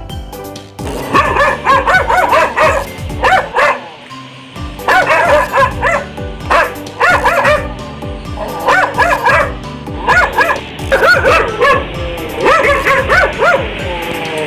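Dog barking and yipping in repeated runs of short, high barks, over background music.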